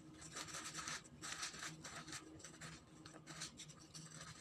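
Paper towel rustling and rubbing over sliced eggplant and a wooden cutting board as the slices are patted and wiped dry, in faint, irregular brushing strokes.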